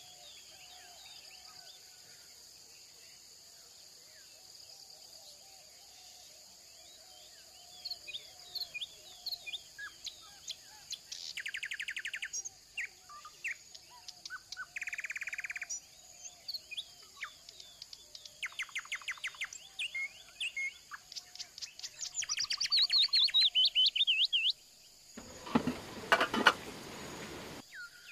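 Songbirds chirping and calling, with several fast trills, the longest a falling trill of a few seconds, over a steady high hiss. Near the end comes a louder noisy burst of about a second and a half.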